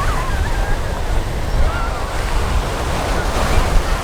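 Ocean surf washing steadily, with wind buffeting the microphone in a heavy, uneven low rumble.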